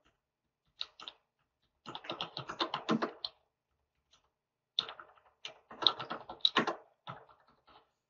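Typing on a computer keyboard: a couple of keystrokes about a second in, then two quick runs of keystrokes, one from about two to three seconds and another from about five to seven seconds, with pauses between.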